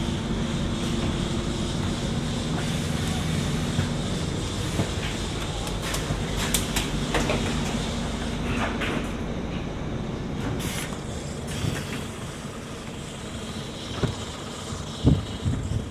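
City bus running and slowing, its steady engine hum fading after a few seconds, with two short hisses of air and a few knocks near the end.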